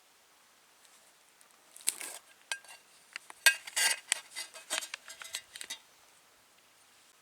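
Clinks, knocks and short scrapes of tableware or cookware being handled, a run of sharp clicks over about four seconds, loudest a little past the middle.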